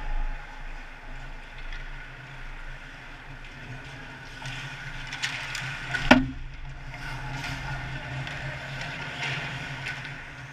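Ice hockey rink sounds: skate blades scraping and carving on the ice over a steady arena hum, and about six seconds in a single sharp crack of a puck shot on goal.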